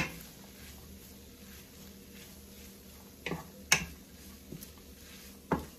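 Wooden spatula stirring saltfish and chopped vegetables in a nonstick frying pan, with a few sharp knocks of the spatula against the pan: one at the start, two a little past three seconds in, and one near the end, over a faint steady hum.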